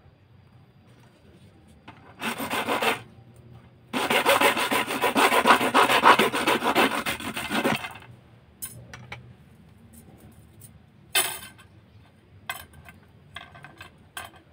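Hacksaw blade sawing through a fiberglass rod held on a wooden block: a short run of strokes, then a longer, louder run of rapid strokes lasting about four seconds. A few sharp clicks and taps follow.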